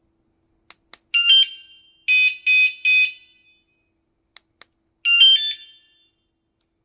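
Mengshen wireless anti-theft alarm unit giving short electronic confirmation chirps: a warbling chirp about a second in, three quick beeps, then another chirp near the end. Each chirp is preceded by a couple of faint clicks.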